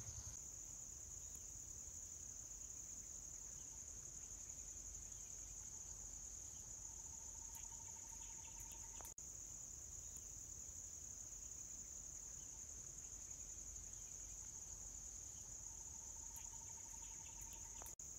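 Steady, high-pitched drone of a daytime insect chorus in scrub forest, unbroken, with a faint lower steady tone rising under it twice for about two seconds.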